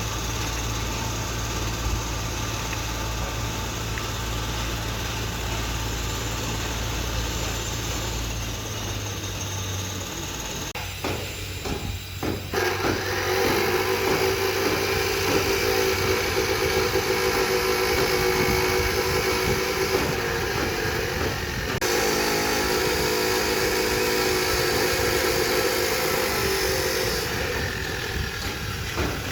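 Construction machinery running: a steady low engine hum, then a louder motor whine with several steady pitches joins about twelve seconds in and shifts near the end.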